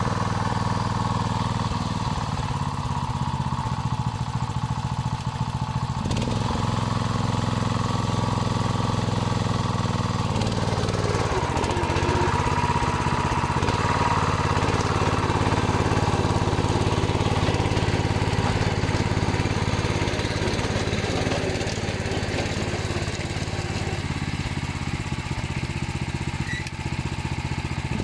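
Single-cylinder petrol engine of a Ferrari walk-behind tractor running steadily while its BCS rotary tiller churns soil. Its note changes around ten seconds in.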